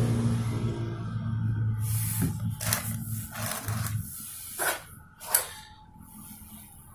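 Silicone sealant being laid from a caulking gun: several short squeaks and clicks. They come over a low steady hum that fades out about four seconds in.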